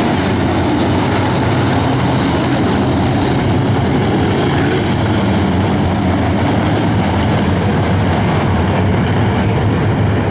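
Engines of a pack of dirt-track modified race cars running together in formation at slow pace speed, a loud, steady low drone with no sharp revving.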